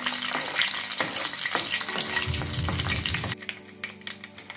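Hot oil sizzling and crackling as a tempering of mustard seeds and dal fries in a kadai, stirred with a spoon. The sizzle turns quieter about three and a half seconds in.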